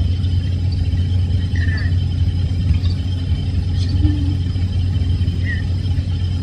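Steady low hum with a faint hiss from a laptop microphone recording that has been boosted and run through noise reduction; no distinct event stands out.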